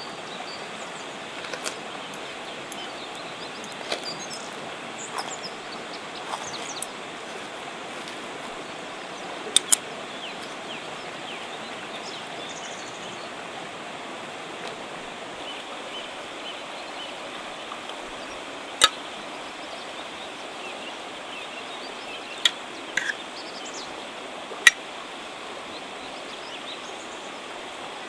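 A river flowing steadily, with a handful of sharp clinks of a metal fork and spoon against a metal serving tray and plate as grilled salmon is cut and served.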